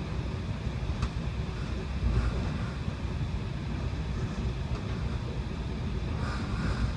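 Steady low rumble of a passenger train running on the rails, heard from inside the coach by the window, with a single click about a second in.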